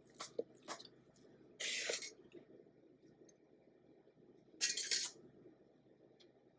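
Metal spatula scraping strawberry frosting out of a stainless steel mixing bowl: two short scrapes, about one and a half seconds in and again near five seconds, after a few light clicks of the spatula against the bowl.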